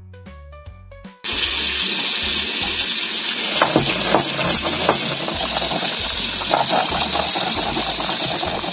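A stone roller grinding mustard seeds and garlic on a stone slab (sil-batta), a continuous rough scraping and grating with sharper scrapes now and then, starting abruptly about a second in. Background music with a low beat plays underneath, and alone before the grinding starts.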